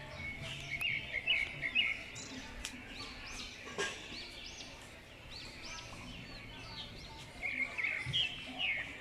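Lovebirds chirping: a continuous stream of shrill, high, repeated chirps, with louder flurries of chatter about a second in and again near the end.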